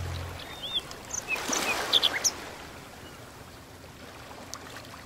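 Outdoor water ambience, an even rushing of water with a few short bird chirps in the first couple of seconds, slowly fading out. Low sustained music notes die away just after the start.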